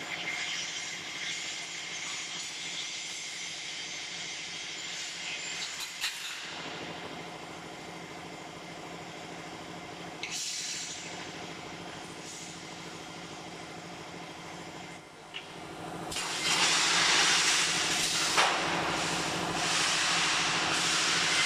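Steel rebar cutting line machinery running: a steady hum under a hissing noise, with a few sharp metal clanks. The hiss swells and grows louder about sixteen seconds in.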